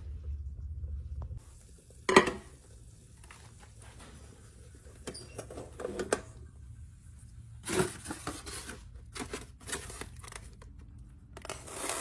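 Cookware being handled: a sharp knock about two seconds in, then clinks and scraping as the inner pot of a small rice cooker is lifted with an oven mitt and the macaroni is tipped out, with a longer scrape near the end.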